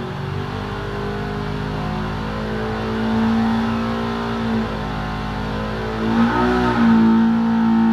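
Stock Polaris RS1's 1000 cc parallel-twin engine running hard under load on an engine dyno during a stock power run, revving up through about 5000 to 7000 rpm. Its steady note grows louder, wavers briefly about six seconds in, then carries on higher.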